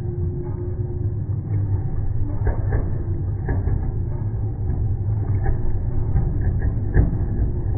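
Stadium crowd noise heard as a dull, steady low rumble, with a few short thumps.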